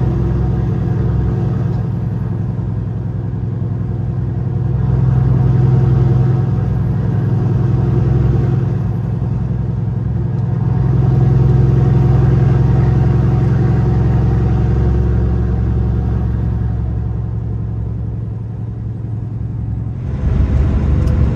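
Semi truck's diesel engine droning steadily at highway cruise, with a hiss of road noise that swells and fades every few seconds.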